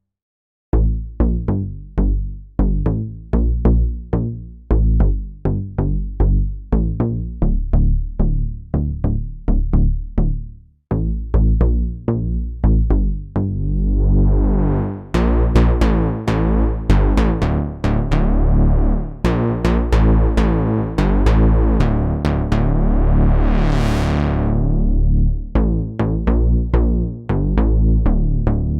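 Arturia JUN-6V, a software emulation of the Roland Juno-60 polysynth, playing a repeating sequence of short, bass-heavy notes. From about halfway a filter sweep opens slowly, brightest about four-fifths in, then closes again.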